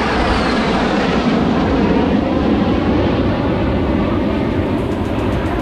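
Jet engine noise from a formation of military fighter jets flying past in a display, a loud, steady rush of sound with a high whine dropping in pitch just at the start.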